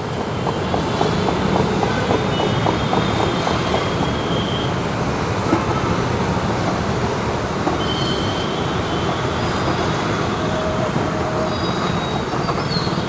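Wooden hand churner (madhani) spun in a steel pot of curd, sugar and water to blend lassi: steady churning and sloshing with a few light knocks of wood on steel, over steady street noise.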